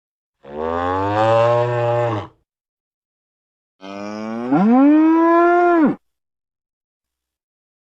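Two cow moos, each about two seconds long. The first falls slightly in pitch; the second starts low, rises sharply about halfway through, then holds and cuts off.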